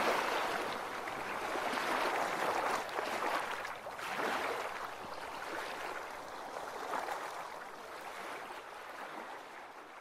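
Ocean waves washing in slow swells, gradually fading out toward the end.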